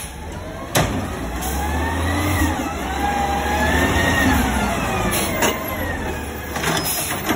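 Automated side-loading garbage truck with a Crane Carrier cab pulling forward past, its engine rising in pitch as it accelerates and then falling as it eases off, over a low rumble. A sharp knock sounds about a second in.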